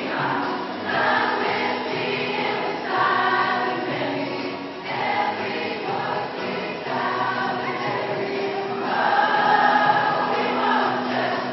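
A large choir of teenage girls singing together in held notes, the phrases changing every second or two.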